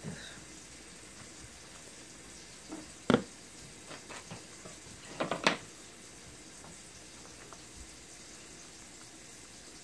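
Knocks and clatter from food being arranged on a serving platter with a knife: one sharp knock about three seconds in and a short clatter a couple of seconds later, over a steady background hiss.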